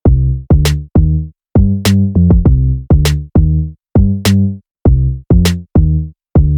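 Electronic music with a drum-machine beat: short, clipped bass-heavy notes in a stop-start rhythm, with sharp high hits between them.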